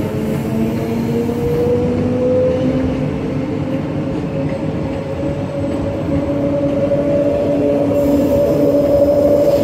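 Queensland Rail EMU electric train pulling along the platform, its traction motor whine rising steadily in pitch as it gathers speed over the rumble of wheels on the rails.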